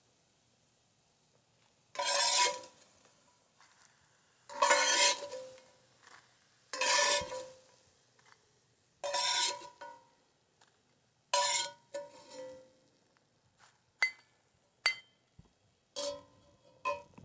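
Metal spatula scraping across a cast-iron skillet, five strokes about two seconds apart, each with a short ringing tone from the pan. Near the end come four short metallic clinks.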